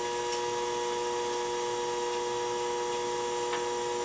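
Motor of a flat-hone shear-sharpening machine running with its disc spinning: a steady hum of several fixed tones.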